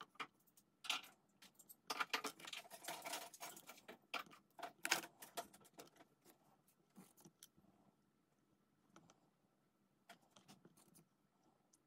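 Faint handling sounds of small clay cutters and polymer clay pieces being moved, set down and pressed on a work surface. There is a flurry of light clicks and scrapes in the first five seconds or so, then only occasional taps.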